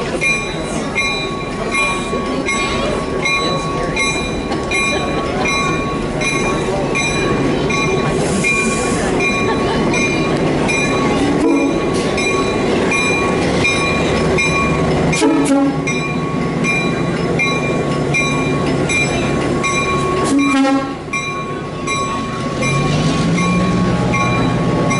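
Diesel switcher locomotive rolling slowly past with its engine running and its bell ringing steadily, about two to three strikes a second. A few short clanks from the wheels and couplings, and the engine's pitch rises near the end.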